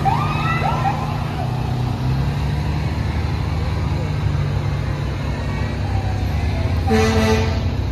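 Slow-moving parade vehicles running past: the low, steady rumble of a fire engine's engine, then a fire department SUV, with crowd voices and shouts in the first second or so. About seven seconds in comes a short vehicle horn blast.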